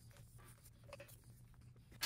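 Near silence: faint rustling and small clicks of hands working a rubber sleeve over motorcycle wiring, over a low steady hum.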